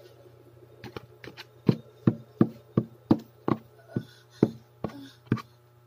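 A plastic fork knocking against a cardboard takeout food box, about a dozen sharp taps in quick succession starting about a second in, over a steady low hum.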